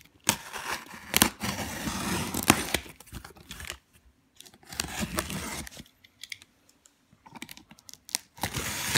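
Packing tape and cardboard being torn as a taped cardboard shipping box is opened. There are three stretches of rough tearing with sharp crackles, the first the longest at about three seconds.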